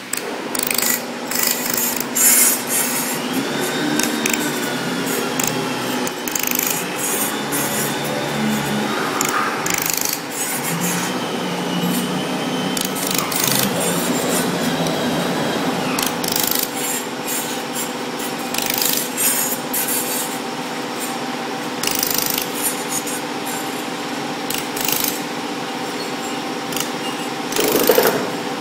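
Welding machine in use on metal: a steady electrical hum under a rasping, crackling hiss.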